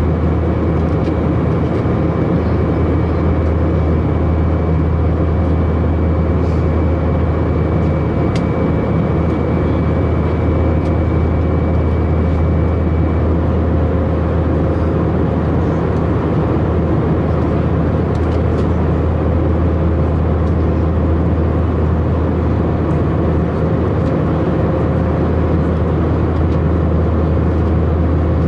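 Steady in-flight cabin noise of an Airbus A319 heard at a window seat: a constant low rumble of its IAE V2522-A5 turbofan engines and airflow. A faint high steady whine stops about halfway through.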